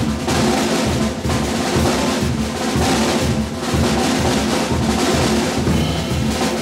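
Jazz piano trio playing live, with the drum kit to the fore over grand piano and double bass.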